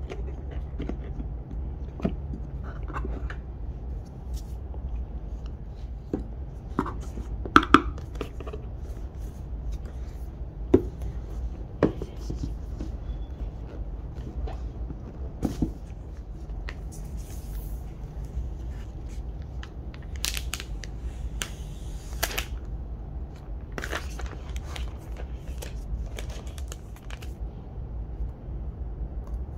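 Hands handling the MacBook Pro's box and packaging: scattered light taps, clicks and short rustles of card and plastic over a steady low hum. A sharp double click about seven and a half seconds in is the loudest sound.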